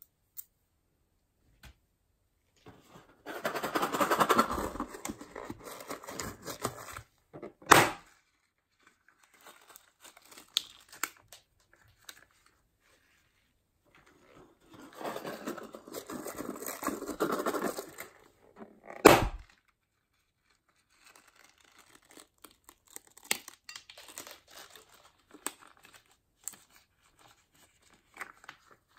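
Small plastic packets crinkling as beads are shaken out into a glass dish of glitter, twice, each time followed by one sharp snap. After that, scattered light ticks and rustles from handling.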